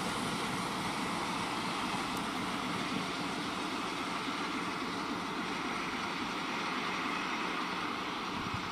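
Newag 6Dg diesel shunting locomotive running light along the line, heard from a distance as a steady, even drone.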